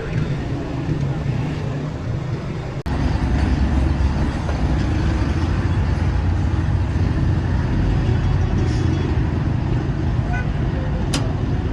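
A vehicle engine running with a steady low rumble, which becomes louder after a brief break about three seconds in.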